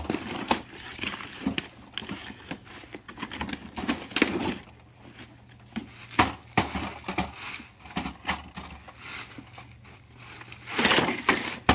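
Lightweight aluminium work platform being unfolded by hand: irregular clicks and clacks from its hinged frame and legs, with plastic wrapping crinkling and a louder stretch of rustling near the end.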